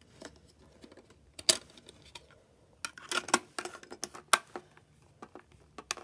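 Plastic clicks and taps from a CD being handled and a NETmate portable CD player's lid being shut: a scattering of short, sharp clicks, the loudest about a second and a half in and just past three seconds in.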